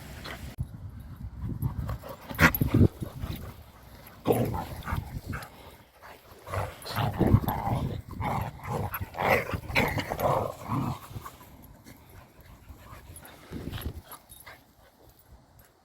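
Dogs playing rough, with a run of short, uneven growls and yaps that are loudest about two and a half and seven seconds in, then die down near the end.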